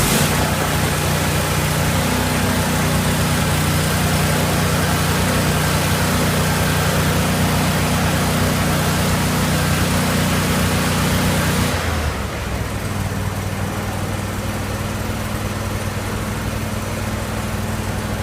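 Lincoln Ranger 225 welder generator's petrol engine running steadily at full speed just after starting, then about twelve seconds in dropping to a lower, quieter steady speed as the automatic idler brings it down to low idle with no welding load.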